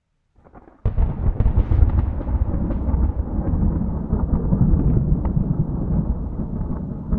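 A lightning strike's thunder with no rain: a faint crackle, then a sudden sharp crack about a second in, followed by a long, deep rumble with scattered crackles.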